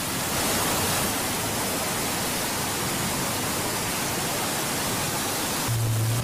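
Floodwater rushing through a street, a loud steady rush of water. Near the end a bus's engine adds a low steady hum as the bus drives through the flood.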